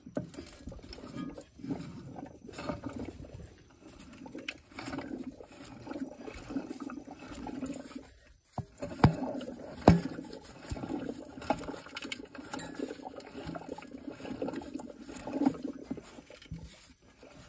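Close rustling and scraping of a hand and phone moving around a flex plate and torque converter bolts, with scattered clicks and two sharper clicks a little past the middle.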